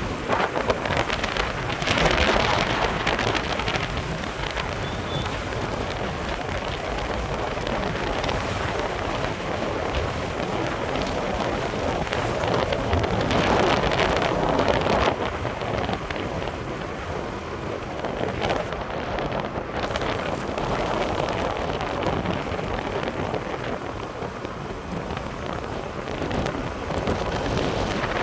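Wind rushing over the microphone during a ride: a steady rushing noise that swells and eases in gusts.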